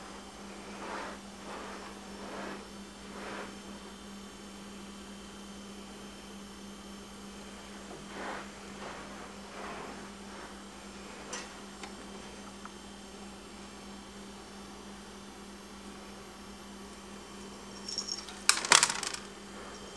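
Steady low electrical hum, with soft scrabbling of pet rats climbing about a wire cage and a short burst of sharp rattling clicks near the end.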